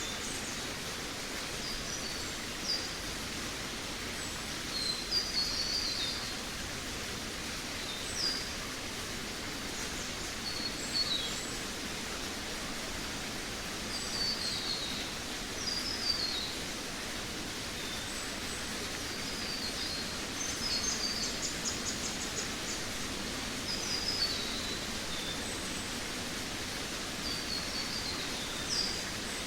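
Forest birds singing: short, high, falling chirped phrases every second or two, with a quick trill in the second half, over a steady even hiss of background noise.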